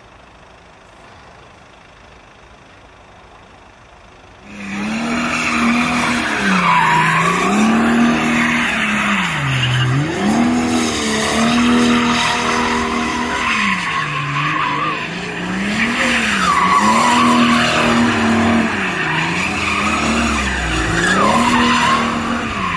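Car drifting on tarmac, starting suddenly about four seconds in after a quiet stretch. The engine revs climb and drop again every couple of seconds while the tyres squeal.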